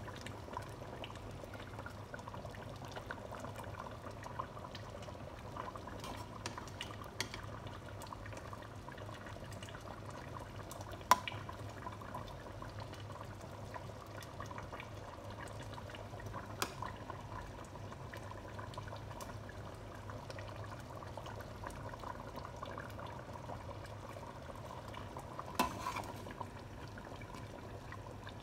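Goat stew being ladled from a pot into a bowl with a metal ladle: thick sauce pouring and a few sharp clinks of the ladle against the dishes, the loudest about eleven seconds in, over a steady low hum.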